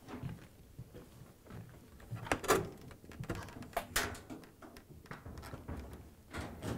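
A Maytag top-load washer tipped upright by hand and set down on the floor: several knocks and bumps from the cabinet and its loose parts, the loudest about two and a half seconds in.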